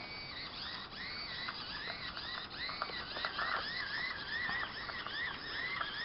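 The two continuous-rotation servo motors of a small line-following robot car whine, their pitch rising and falling in short arcs two or three times a second as the car keeps correcting its course along the line. Faint clicks come here and there.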